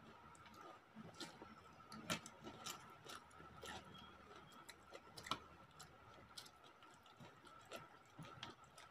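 Quiet eating with the hands: fingers mixing rice on a plate and mouths chewing, heard as scattered small clicks and smacks at irregular times, the loudest about two seconds and five seconds in. A faint steady high whine runs underneath.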